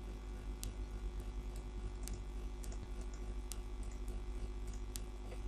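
Faint computer-mouse clicks, about one every half second to a second, over a steady low electrical hum from the microphone, while a fill colour is picked in the software.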